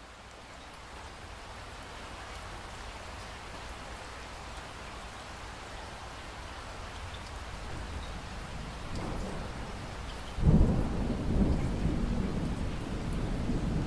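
Steady rain falling, growing slowly louder. About ten seconds in, thunder breaks in suddenly and loudly, then rumbles on.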